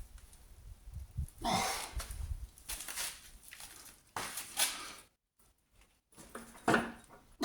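A man's short, effortful breaths and grunts, about four of them, as he strains on a breaker bar against a seized 19 mm bolt that will not give.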